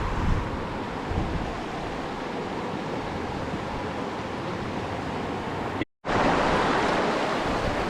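Steady rushing of a small river's flowing water. The sound cuts out for a moment about six seconds in and comes back louder.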